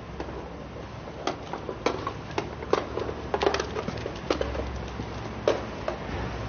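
Irregular sharp clicks and taps, a few a second, over a low steady hum.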